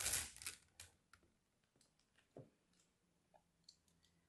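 A thin pointed metal tool scratching and tapping on bars of soap: a short dense scratch at the start, then scattered light clicks. About halfway through there is a single soft knock as a soap bar is picked up from among the others.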